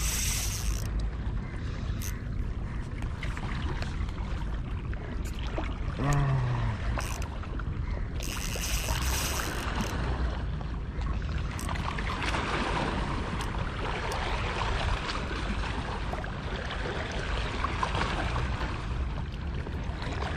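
Wind rumble and sea-water hiss on light spinning tackle mid-fight, with two short hissing runs, one right at the start and one about eight seconds in, from the Shimano Vanford spinning reel's drag giving line to a fish.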